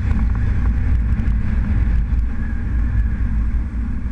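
Motorcycle engine running steadily while riding along a city street, heard from on board as a continuous low rumble.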